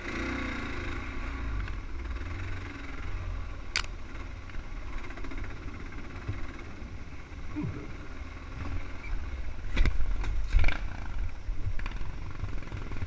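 Dirt bike engine running as it is ridden along a rough forest trail, with a steady low rumble. A few sharp knocks and rattles from the bike over the bumps, one about four seconds in and a couple around ten seconds.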